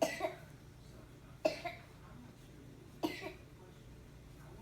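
Toddler boy coughing: three short coughs about a second and a half apart, each with a quick second catch after it.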